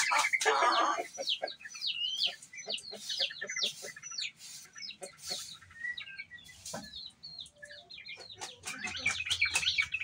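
Birds chirping: many short, high chirps in quick succession, thinning out around the middle and picking up again near the end.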